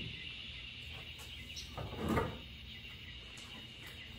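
A single dull knock about two seconds in, with a few faint clicks, from hands working on the metal underside of a car raised on a lift, over a steady high hiss.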